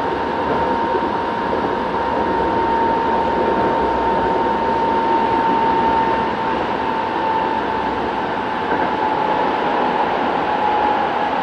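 Kobe Municipal Subway 1000 series train with Hitachi GTO-VVVF drive, running: a steady rush of running noise with a single whine that slowly drops in pitch.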